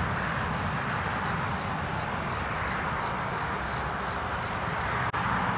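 Steady outdoor background noise: an even hiss over a low rumble, with no distinct events, briefly broken about five seconds in.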